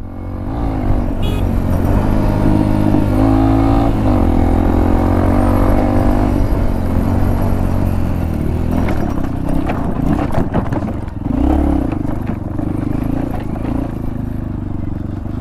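Motorcycle engine of a Hero Impulse fitted with a Karizma engine, running under load on a rough off-road trail, its revs rising and falling with the throttle. Rattles and knocks over the rocky ground come around the middle.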